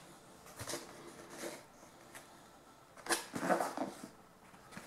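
A cardboard clock box handled and turned over in the hands: rustling and scraping of the cardboard in short bursts, loudest about three seconds in.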